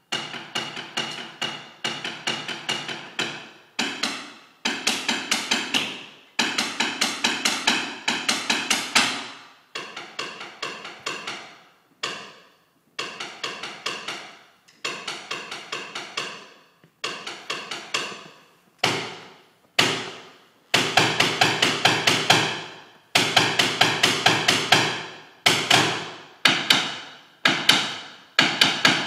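Many drumsticks striking the steps of a large ziggurat sculpture together, in fast runs of taps that swell and break off in short pauses every second or two, each stroke ringing briefly.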